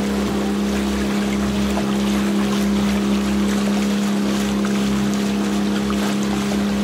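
Boat's engine running at a constant speed, a steady unchanging hum, with a steady hiss of moving water and air underneath.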